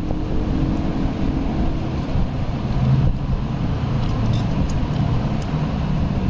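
Steady low background rumble with no clear single source.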